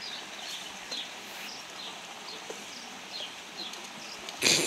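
Quiet outdoor background with faint, short, high chirps scattered through. Near the end comes one brief, loud rustle as the ring-tailed lemur pushes its face into the plastic food pot held up to it.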